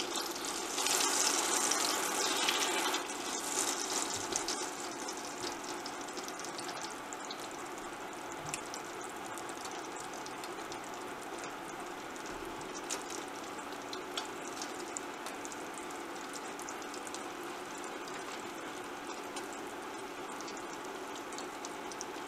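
Slices of luncheon meat sizzling in hot oil in a stainless steel pan. The sizzle is louder for the first few seconds, while the slices are turned with tongs, then settles to a steady sizzle with light crackles.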